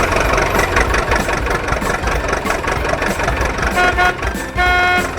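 A vehicle engine sound effect running steadily, with two horn toots near the end, a short one and then a longer one.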